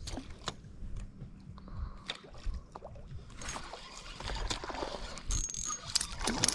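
Ultralight spinning reel being handled and cranked: scattered clicks, then a steady high-pitched whine from about five seconds in as the reel winds line.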